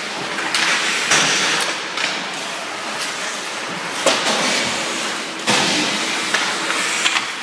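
Ice hockey play: skate blades scraping across the ice in swelling hisses, with a few sharp clacks of sticks and puck.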